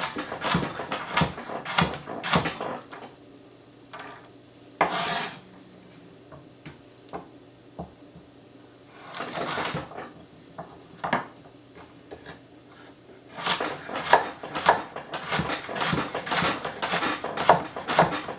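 Kitchen knife chopping carrots into half discs on a cutting board: quick runs of sharp knocks, with a quieter spell in the middle broken by a couple of scraping sounds and a few single knocks. The old table is shaky, so it knocks with the strokes.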